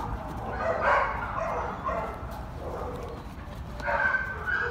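Bloodhound at play with a red rubber toy, with a series of short, high-pitched squeals in clusters, one held for about half a second near the end.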